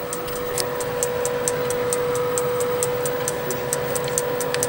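Halogen convection oven running: a steady hum from its fan under fast, sharp ticking, about four ticks a second.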